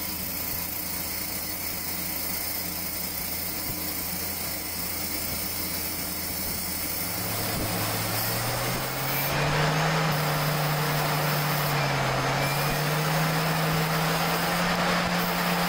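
CNC lathe turning a metal part: a steady machine hum with the hiss of the cut. About halfway through, a humming tone rises in pitch and holds, and the hiss grows louder.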